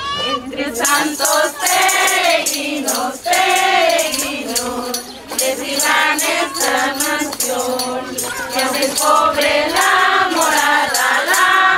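A group of women singing a Christmas pastorela song together, with a shaken jingling percussion keeping a steady beat.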